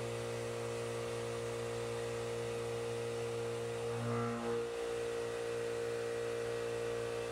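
A 3/4-inch backdraft end mill semi-finishing the walls of a pocket in 4140 pre-hard steel at 3500 RPM: a steady cutting hum with higher whining tones over it, briefly louder about four seconds in.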